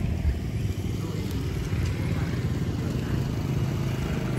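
Wind buffeting the microphone: a steady low, gusty rumble.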